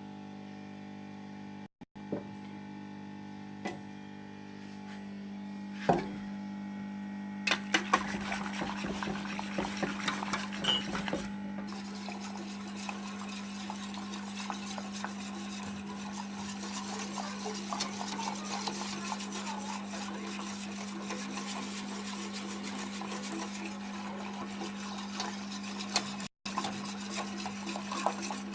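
A few single knocks of kitchen utensils, then from about seven seconds in, rapid continuous whisking as hot milk is beaten into beaten eggs in a jug, the whisk scraping and clattering against the container. A steady low hum runs underneath.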